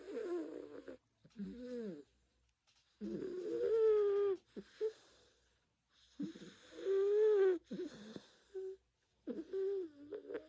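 A cat snoring in its sleep: pitched snores that waver in tone, one with each breath, a few seconds apart.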